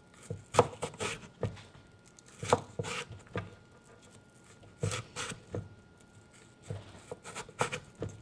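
Knife slicing a black radish into slivers on a wooden cutting board: crisp cuts, some single and some in quick runs, with short pauses between.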